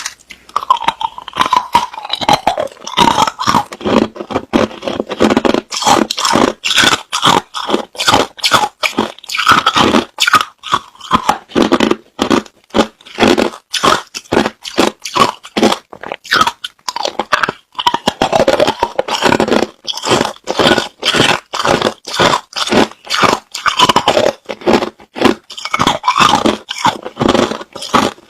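Hard crushed ice being bitten and chewed close to the microphone: a rapid run of sharp, loud crunches, several a second, with a short pause about halfway through.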